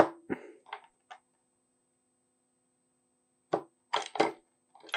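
A D-cell battery being worked out of the battery compartment of a Simpson 270 analog multimeter by hand, with clicks and clacks of the battery against its metal clip and the plastic case. A sharp click and a few lighter clicks come first, then a pause, then a quick cluster of clacks near the end.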